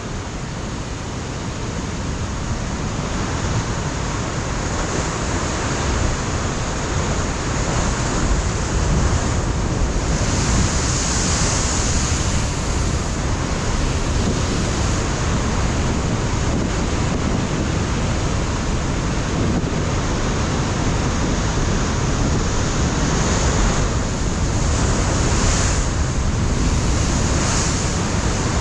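Ocean surf breaking and washing over a rocky shoreline: a continuous wash of noise that swells over the first several seconds, with brighter hissing surges about a third of the way in and again near the end. Wind buffets the microphone as a low, flickering rumble underneath.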